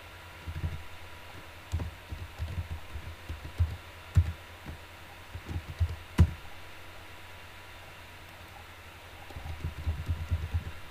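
Computer keyboard being typed on in short, dull keystrokes. A run of taps lasts about six seconds and ends with one sharper, louder key; after a pause of about three seconds comes another quick run near the end.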